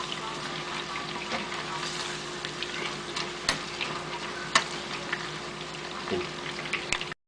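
Chicken pieces deep-frying in a pot of hot oil: a steady sizzle with scattered sharp pops and crackles, over a faint steady hum. The sound cuts off abruptly near the end.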